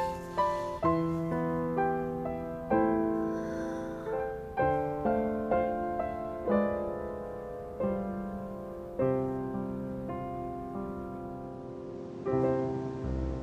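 Gentle background piano music: a slow melody of struck notes and chords, each ringing out and fading before the next.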